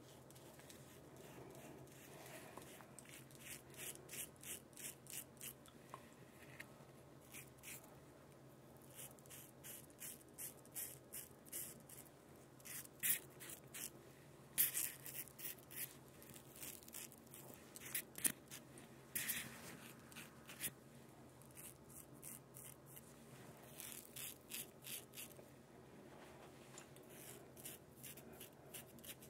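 Feather double-edge safety razor scraping through lather and stubble: short, crisp strokes coming in quick runs of two or three a second, with brief pauses between runs.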